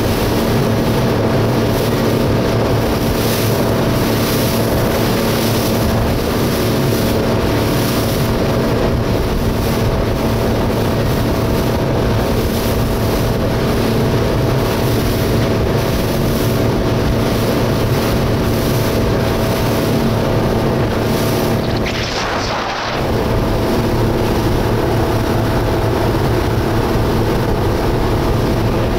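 Motorboat engine running steadily at speed, with wind buffeting the microphone and water rushing in the wake. About three-quarters of the way through the engine note wavers and the level dips briefly before it steadies again.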